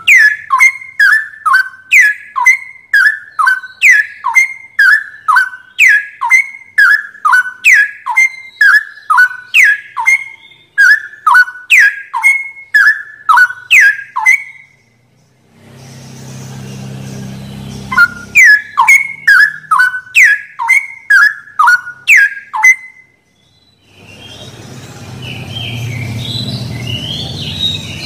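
Straw-headed bulbul singing: a fast, regular run of loud whistled notes, each sweeping down in pitch, about two a second. The song breaks off about halfway through into a low rumbling hiss, resumes for a few seconds, then gives way near the end to more rumble and hiss with faint higher chirps.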